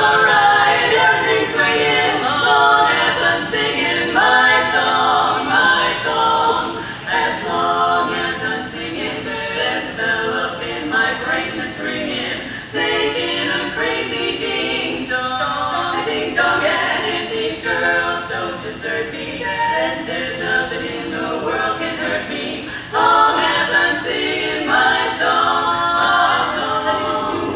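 Women's barbershop quartet singing a cappella in four-part harmony, in continuous phrases with brief breaks between them.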